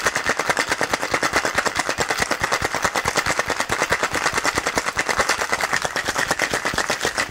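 Ice cubes rattling inside a two-piece metal cocktail shaker shaken hard, a fast, even run of ice striking the metal tins. The drink is being shaken on ice to chill and dilute it.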